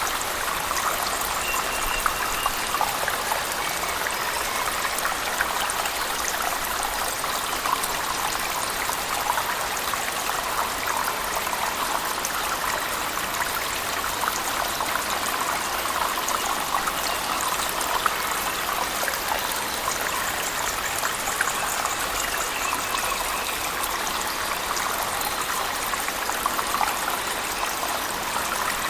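A cave waterfall mixed with heavy rain: a steady rush of falling water, dotted throughout with small, sharp drop splashes.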